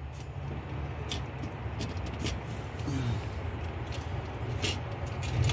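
Light clicks and scrapes of a car's fuel pump module being worked by hand down into the fuel tank opening, over a steady low rumble.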